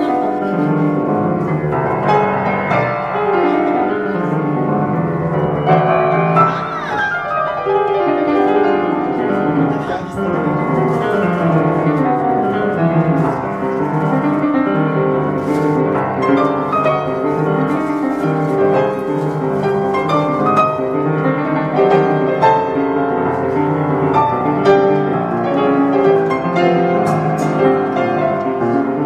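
1872 Rittmüller upright piano being played: a continuous passage of many notes.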